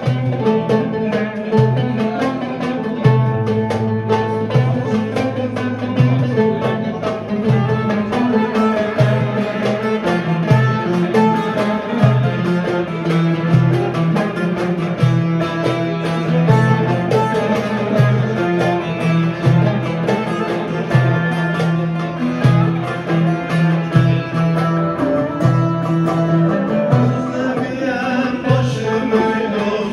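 Live Turkish folk music on plucked strings: a bağlama (long-necked saz) and a round-bodied, banjo-like cümbüş playing together with rapid picked notes over a moving low line.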